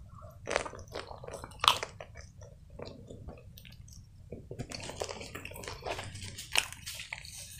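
Close-miked mouth sounds of biting into and chewing a slice of pizza: wet, irregular smacks and clicks, the sharpest snap about two seconds in.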